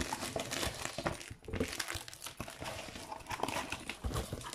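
Hands pulling packing tape and opening a cardboard shipping box: irregular crinkling and rustling of tape and cardboard in quick, uneven strokes.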